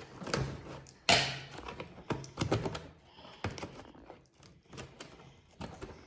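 A toy box being opened and its packed pieces handled: a run of irregular knocks, taps and rustles, the loudest knock about a second in.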